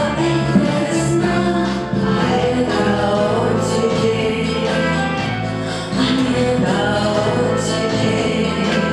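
A woman singing a song into a microphone over instrumental accompaniment, amplified through the hall's speakers.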